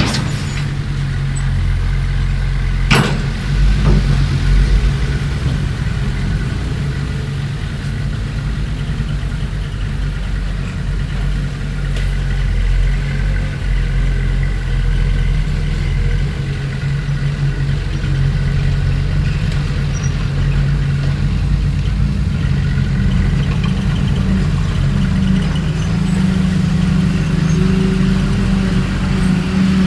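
Diesel engines of heavy earthmoving equipment, a bulldozer working with dump trucks, running steadily in a low drone. There is one sharp knock about three seconds in.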